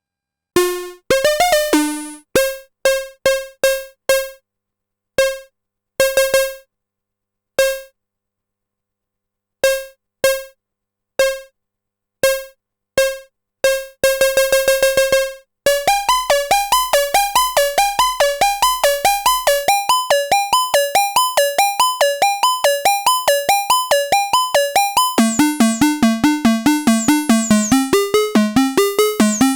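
Arturia MiniBrute 2 analog synthesizer playing short, bright plucked notes, sparse at first. From about halfway it plays a fast, continuous repeating pattern of notes, and lower notes join near the end.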